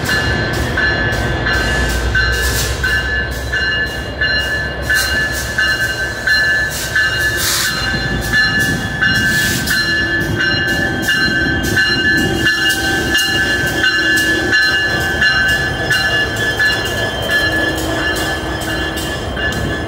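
Metra EMD F59PHI diesel locomotive, with a 12-cylinder EMD 710 engine, running as it makes a light engine move. Its bell rings steadily about twice a second over the engine's low rumble.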